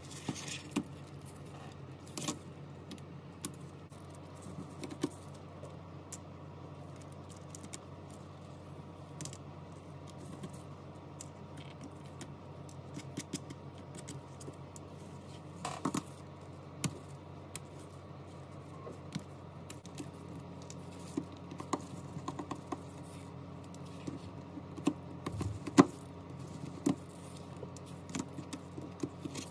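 Scattered light clicks and taps of small hand tools on phone parts during an iPhone repair, irregular, with the sharpest click about 26 seconds in, over a steady low hum.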